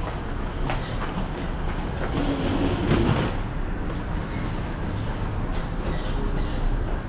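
Airport moving walkway running with a steady mechanical rumble and light clacking from its moving pallets, swelling briefly about two to three seconds in.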